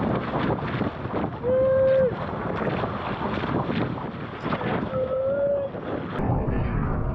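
Wind buffeting the microphone and spray splashing over a small sailing trimaran moving fast through choppy water. Twice a short held call like a shout rises above it, the louder one about a second and a half in.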